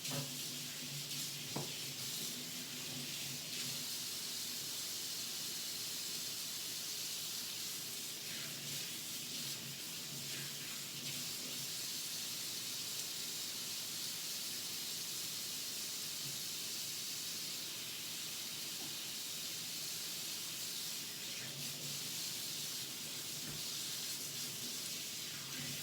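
Water running steadily from a tap into a sink, used to rinse wet acrylic paint out of clothing.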